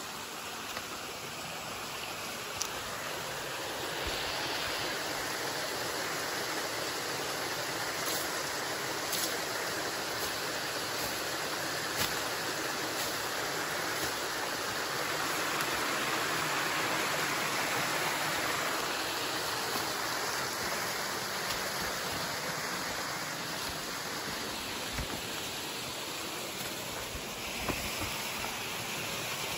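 A stream running steadily, an even rush of water that grows a little louder midway and then eases off. A few light ticks and rustles of footsteps through undergrowth sit over it.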